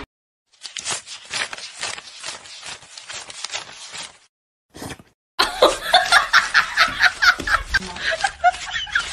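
A stack of paper banknotes riffled rapidly through the fingers: a fast run of crisp flicks. After a brief pause about four seconds in, a person laughs in quick repeated bursts.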